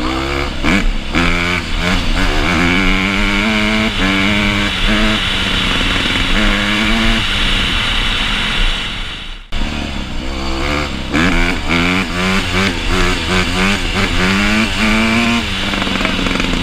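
Honda CRF150R's single-cylinder four-stroke engine revving hard and shifting up through the gears, the pitch climbing and dropping again and again. The sound cuts out for a moment about halfway through, then the revving carries on.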